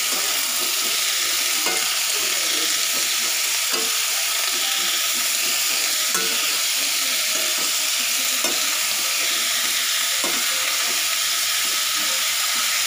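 Diced vegetables sizzling in oil in a metal kadai, stir-fried in the spice paste with a spatula that scrapes and knocks against the pan every couple of seconds. The steady hiss runs under the scrapes.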